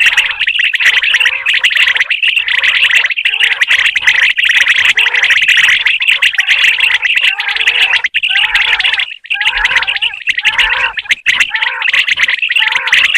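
Common quail calling over and over, many loud, closely packed chirping calls overlapping, with brief breaks about eight and nine seconds in.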